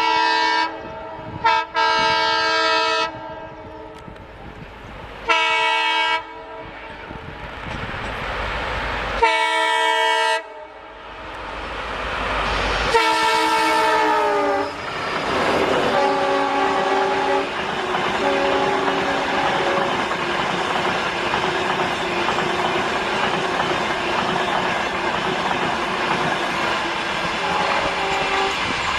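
Indian Railways locomotive horn sounding five loud blasts as a train approaches, the last one dropping in pitch as it passes. After that comes the steady running noise of the passing train, with a few fainter horn tones.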